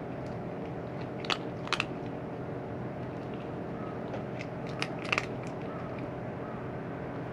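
A cat crunching food in a few sharp, scattered bites, over a steady low hum.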